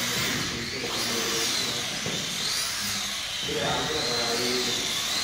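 Small electric drive motor of a scale model car whining as the car drifts under automatic control. The whine wavers up and down in pitch as the controller varies the throttle to hold the drift.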